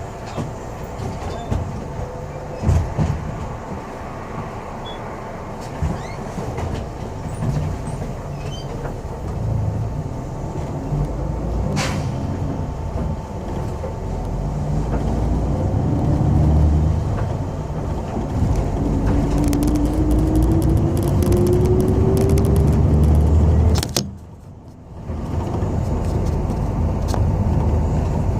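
Ride inside a moving city bus: steady low engine and road rumble with occasional rattles and clicks. Partway through a whine rises steadily in pitch for a few seconds, then the sound drops out suddenly for about a second near the end before the rumble returns.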